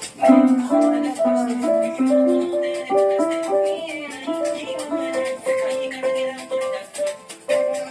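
Music: a melody of plucked-string notes stepping up and down over a steady rattling shaker beat.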